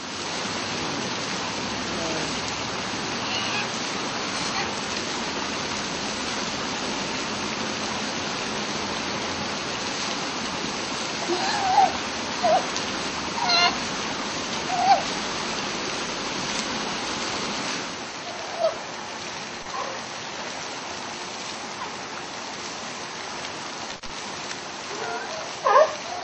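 Steady rush of running water at a sea lion pool, with several short, loud calls in the middle and near the end.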